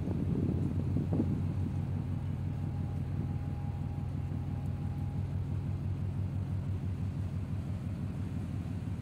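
Low, steady engine drone of a large container ship's diesel machinery as the ship passes close by, with a faint higher steady tone for several seconds in the middle and a brief knock about a second in.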